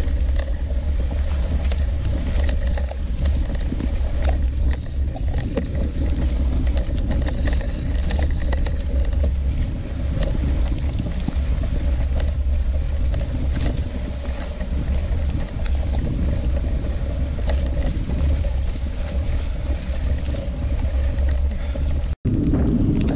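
Mountain bike riding down a wet, muddy trail, heard through a bike-mounted GoPro: heavy wind rumble on the microphone, tyre noise and frequent rattles and knocks from the bike going over bumps. The sound drops out for an instant near the end.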